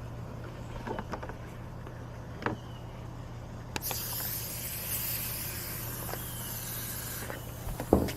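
A few light clicks, then a steady hiss that starts abruptly and cuts off after about three and a half seconds, over a low steady hum.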